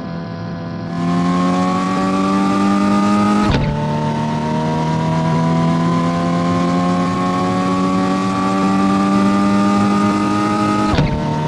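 An engine accelerating through the gears. Its pitch climbs slowly, falls sharply at a gear change about three and a half seconds in, climbs again, and falls at a second change near the end.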